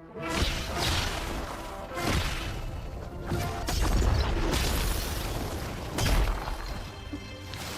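Cinematic sound effects over music: a series of heavy booms and crashing impacts, about five over several seconds, with a deep rumble underneath.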